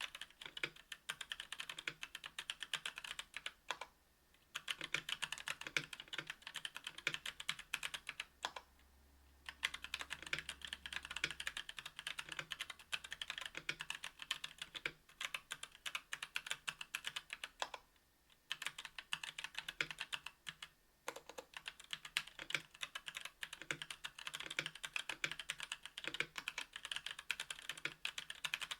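Continuous fast typing on a KBDfans Tofu 60% aluminium-plate keyboard with Domikey x Kailh Cyberpunk Pink Purple 62 g tactile switches and GMK keycaps: a dense run of key clacks broken by a few short pauses.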